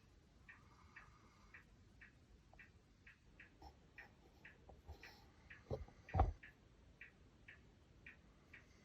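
Faint, even ticking, about two ticks a second. About six seconds in, a sleeping Siberian husky gives two short, low snorts about half a second apart.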